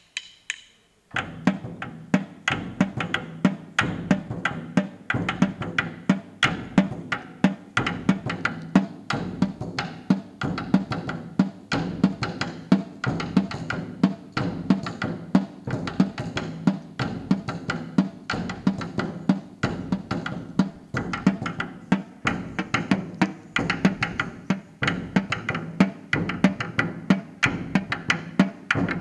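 Marching snare drum struck with wooden sticks in a steady, repeating pattern, starting about a second in. The snare strap is lowered to give the drum this sound for the second pattern of the piece.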